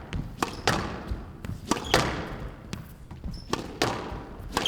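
A squash rally: the ball cracking off rackets and the court walls in quick succession, about two to three sharp strikes a second, each echoing briefly in the hall.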